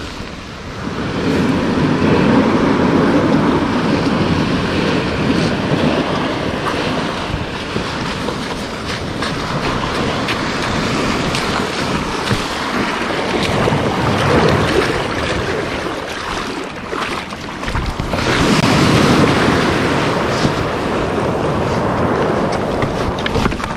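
Small surf waves washing over the shore and around an inflatable paddleboard as it is pushed out through the shallows, with wind on the microphone. The wash swells louder twice, a couple of seconds in and again in the last third.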